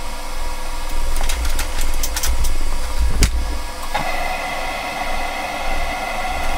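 A few light clicks and a sharp knock, then a small motor starts abruptly about four seconds in and whirs at a steady pitch.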